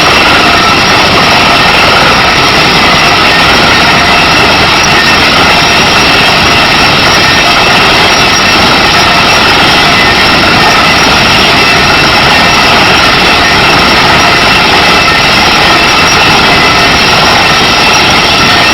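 Kaishan KW20 water-well drilling rig running: a loud, steady engine and machinery noise that holds unchanged throughout, with a faint whine in it.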